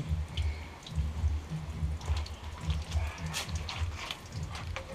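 Water splashing and dripping in a concrete wash basin as a puppy is washed by hand, with a thin stream running from the tap.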